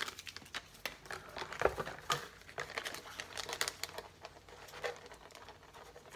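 Plastic soft-bait packet crinkling and rustling in the hands as it is opened to take a bait out, in irregular crackles that thin out toward the end.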